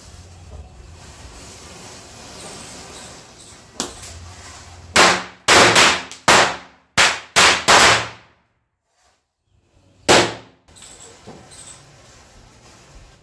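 Diwali firecrackers going off one after another: about six sharp bangs in under three seconds, then a single further bang about two seconds later. A faint hiss comes before the first bang.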